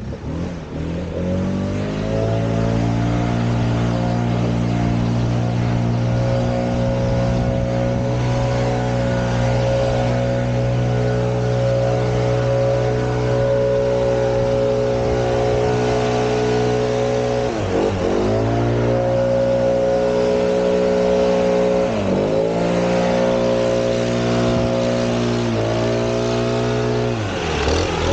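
Backpack leaf blower engine throttling up to high speed over the first couple of seconds, then running steadily at full throttle. In the second half the throttle is eased off briefly and opened again about four times, each time a quick drop and rise in pitch.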